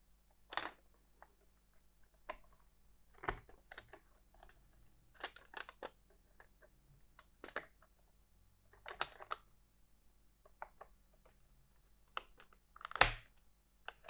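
Scattered small clicks and taps of laptop RAM modules being handled and pressed into their memory slots, the loudest click about a second before the end.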